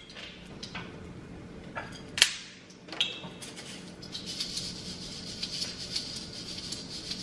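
A few sharp clicks and knocks of kitchen utensils, then, from about four seconds in, a steady run of fine scraping and ticking as chopsticks stir washed, drained rice in a mesh strainer.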